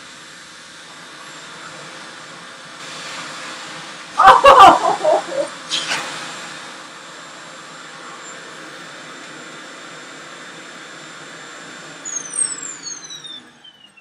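A REVAIR reverse hair dryer and a central vacuum hose sucking air, with hair drawn into the nozzles: a steady rush of air with a thin high motor whine. A loud burst of knocking and rattling comes about four seconds in. Near the end the whine falls in pitch as the suction motor is switched off and spins down.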